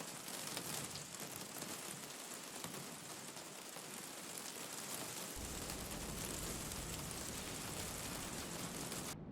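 Steady rain falling in an even hiss. A low rumble fills in about five seconds in, and the hiss drops out for a moment at the very end.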